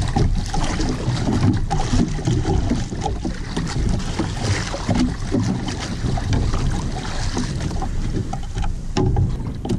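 Wind buffeting the microphone and choppy water slapping and splashing against the hull of a small outrigger boat, a steady rough wash.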